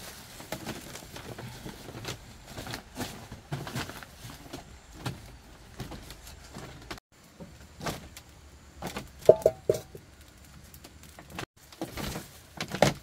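Irregular light knocks, clicks and rustles of things being handled, with a brief squeak about nine seconds in.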